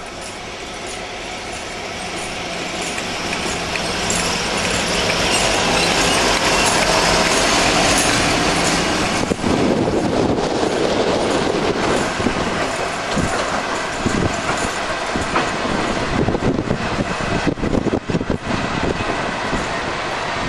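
Class 56 diesel-electric locomotive, with its Ruston-Paxman V16 engine running, growing steadily louder as it approaches. About nine seconds in, the sound changes to the clatter and rumble of loaded coal hopper wagons rolling past.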